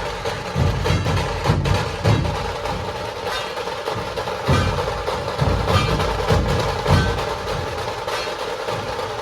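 Dhol tasha ensemble drumming: deep dhol strokes beat out a rhythm over the unbroken, rapid rattle of the tasha drums.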